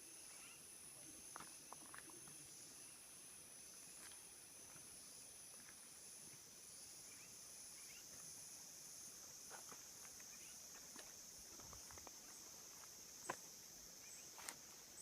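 Faint, steady, high-pitched chorus of rainforest insects in two continuous tones, the higher one turning into an even pulsing about halfway through, with a few faint scattered clicks.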